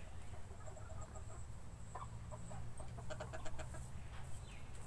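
Young hens clucking softly with short, scattered calls, then a quick run of clucks about three seconds in.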